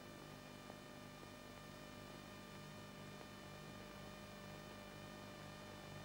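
Near silence: a faint steady hum and hiss on an old film soundtrack.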